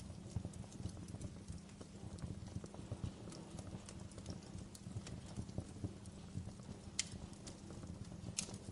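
Wood fire crackling with irregular snaps and pops over a low, steady rumble. Two sharper pops come about seven seconds in and near the end.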